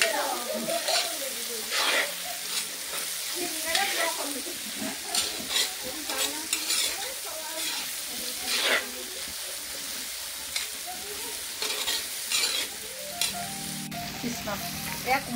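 Cubed vegetables sizzling as they fry in a black wok over a wood fire. A metal spatula stirs and scrapes against the pan every second or two.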